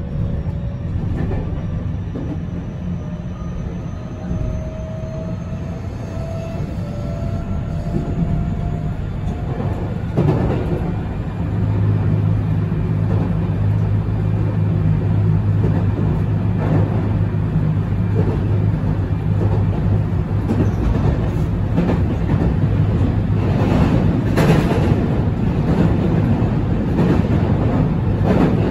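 Cabin running sound of a JR West 207 series electric commuter train with Toshiba IGBT inverter at speed: steady rail and wheel noise, with a faint traction motor whine rising in pitch during the first several seconds. A steady low hum comes in about twelve seconds in, and wheels knock over rail joints, louder toward the end.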